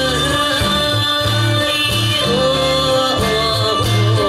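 Isan (northeastern Thai) folk music playing, with a steady pulsing bass beat and a melody line that bends up and down in pitch.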